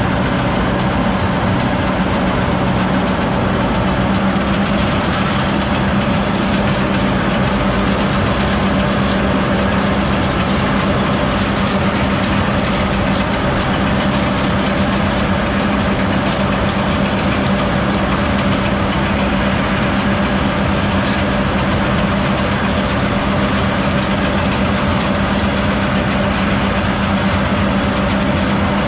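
Gregoire 106 self-propelled grape harvester running steadily while harvesting along a vine row: its engine and picking machinery give a continuous low hum with noise spread above it.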